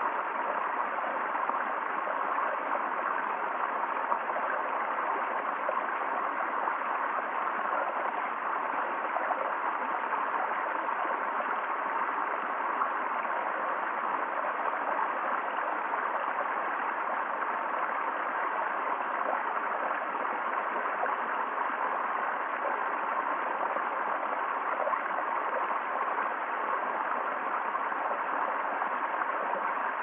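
A small woodland cascade pouring into a shallow rocky pool: a steady, even rush and splash of running water.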